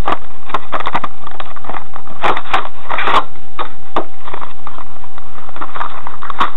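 Stiff clear plastic blister packaging of a boxed computer case fan crackling and clicking as it is handled, with a few louder crunches two to three seconds in.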